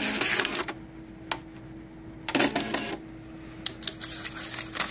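Bixolon SRP-275II dot-matrix receipt printer running its self-test printout: rapid printhead chatter that stops within the first second. After a click, another short burst of printing comes about halfway through, then a couple of clicks near the end, over a faint steady hum.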